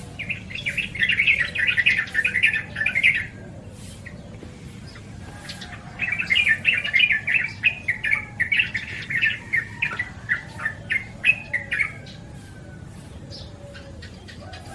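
Yellow-vented bulbul calling in two spells of quick, bubbly chattering notes: one about three seconds long at the start, and a longer one of about six seconds beginning near the middle.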